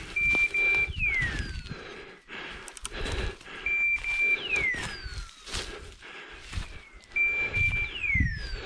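A hunting dog's beeper collar sounds its point signal three times, about every three and a half seconds: two short high beeps, then a falling hawk-like screech. The signal means the English setter is standing still on point. Under it is rustling and crunching of movement through undergrowth.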